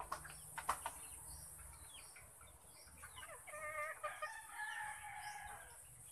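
A rooster crows once. The long crow starts about three seconds in and lasts about two and a half seconds. Two sharp clicks come in the first second.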